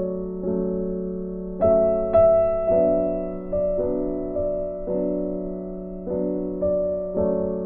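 Background music: gentle piano, soft chords struck about once a second and left to fade.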